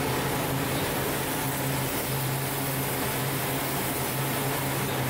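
Steady industrial drone of forging-shop machinery: a constant low hum under a broad rushing noise, with no hammer blows.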